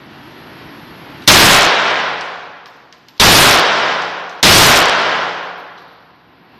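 Three handgun shots, each a sharp crack with a long echoing tail. The first is about a second in, and the second and third follow a little over a second apart.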